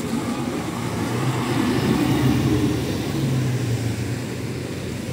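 Road traffic, with a motor vehicle's engine passing close by: a low rumble that swells about a second in, peaks around two seconds, and eases off near the end.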